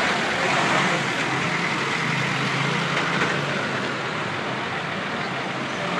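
Isuzu FTS truck's diesel engine idling steadily, over general street traffic noise.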